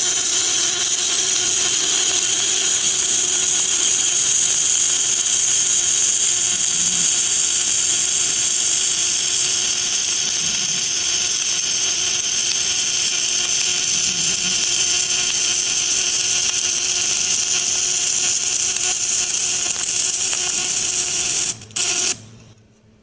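Welding arc crackling and sizzling steadily while a bead is run. Near the end it breaks off for an instant, catches again briefly, then stops abruptly.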